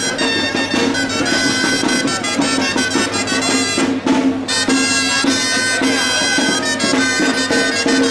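Band music with wind instruments and a drum, playing continuously.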